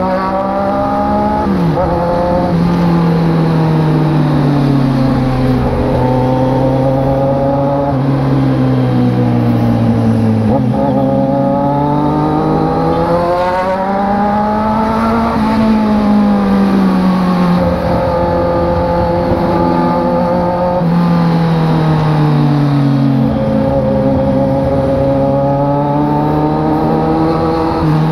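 Motorcycle engine running under way, its pitch rising and falling slowly over several seconds with speed, with a sudden step in pitch roughly every ten seconds.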